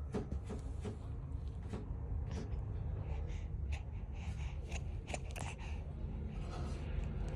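Soft sneezes and snuffling breaths from a one-month-old baby, with scattered small clicks, the brightest bursts coming in the middle.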